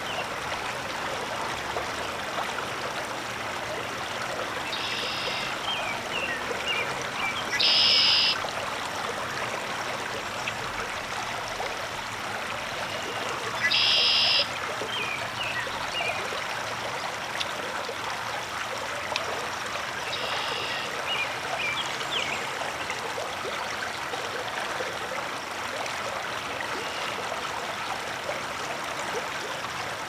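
Steady rush of flowing water, over which a songbird sings a short high trill four times, roughly every six seconds, each followed by a few faint chirps; the second and third trills are the loudest.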